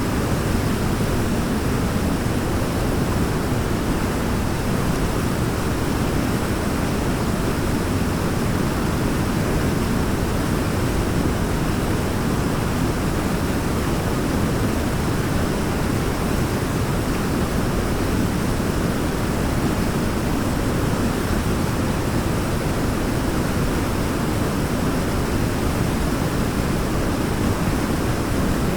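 Waterfall: water falling and splashing in a steady, unbroken rush, deepest in the low end.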